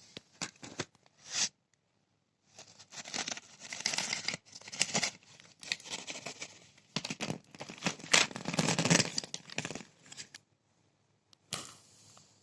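Packaging being torn open and crinkled by hand: a few quick clicks, then several seconds of dense tearing and rustling that stops about two seconds before the end, with one more short rustle near the end.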